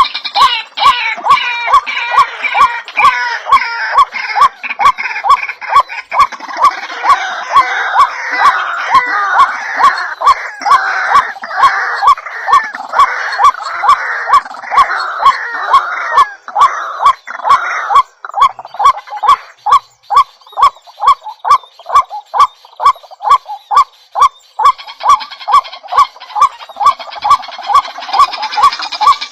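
Many birds calling and chattering, densest in the first half and thinning after about 18 seconds, over a steady, regular pulse of about two loud beats a second.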